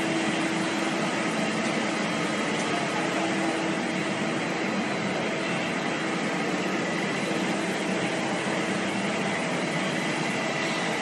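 Polystyrene foam sheet production machinery running: a steady, even mechanical whir with a few faint steady tones in it.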